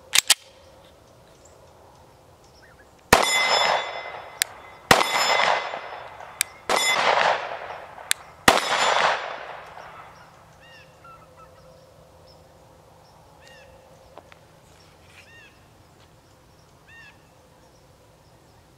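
The slide of a Sig P365XL 9 mm pistol racked with two quick clicks, then four pistol shots about one and a half to two seconds apart, each with a long ringing echo. After the shots a bird calls several times.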